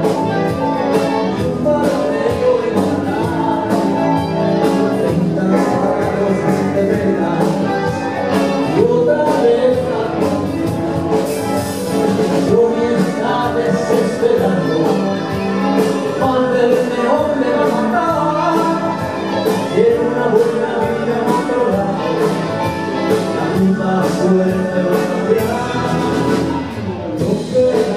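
A rock band playing live with a steady drum beat, the full band sounding throughout.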